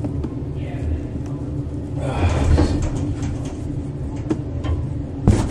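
Elevator doors sliding open about two seconds in, over a steady low hum in the car, then a sharp knock near the end.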